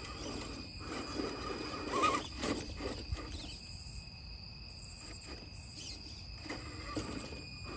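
Electric motor and gear drivetrain of a 1:10 RC rock crawler, a Laegendary Grando, driving in short bursts as it climbs a stone step. Its tires scrape and knock on the stone, busiest in the first few seconds, easing off, then a few more knocks near the end. A steady high-pitched tone runs behind throughout.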